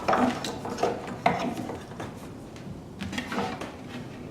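Metal parts and hand tools being handled on a planer: a few scattered sharp knocks and clicks, with light rubbing between them.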